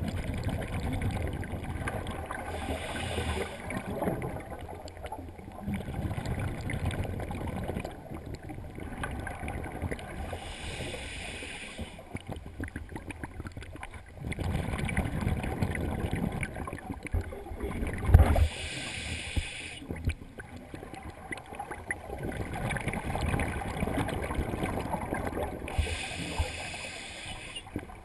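Scuba breathing through a demand regulator underwater. A hissing inhalation comes four times, about every eight seconds, and between them runs the low bubbling rumble of exhaled air.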